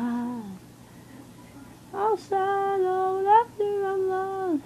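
A woman singing long held notes, each ending with a slide in pitch, after a pause of about a second and a half.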